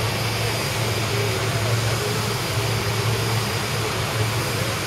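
Aircraft machinery running steadily: a constant low hum with a broad hiss above it.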